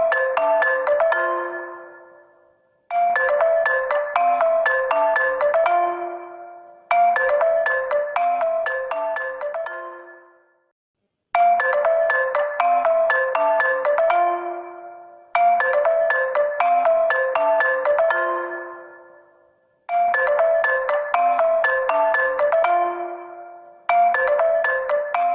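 Honor phone ringtone: a short melody of quick notes, repeated about every four seconds, each repeat dying away before the next begins.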